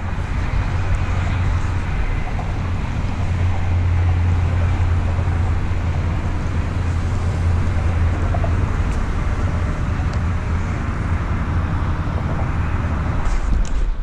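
Steady low rumble of wind on the microphone over open water, swelling a little about a third of the way in.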